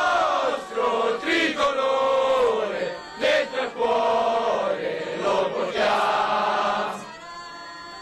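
A formation of soldiers, women and men, sings a military song loudly together in a chanted style. The singing stops about seven seconds in.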